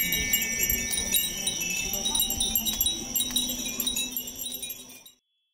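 Many Japanese glass furin wind chimes tinkling together, clusters of high ringing tones overlapping and ringing on. The sound fades out near the end and drops to silence.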